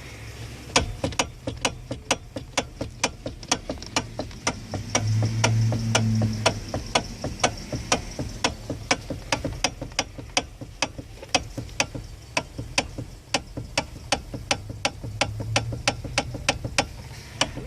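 Steering column of a 2009 Hyundai Elantra clicking and clunking as the steering is turned: sharp clicks about three a second, with a low hum swelling briefly twice. The noise is a fault in the steering column, of unknown cause to the owner, who has found oil leaking at the bolt joining the shaft to the electric power steering motor.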